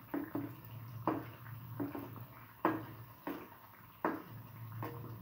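Potato and corn flour patties shallow-frying in hot oil in a pan, with sharp irregular pops of spattering oil, roughly two a second, over a low steady hum.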